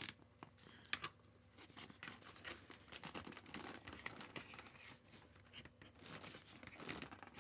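Faint rustling of softbox fabric with small scattered clicks and knocks as its support rods are handled and worked toward the mount.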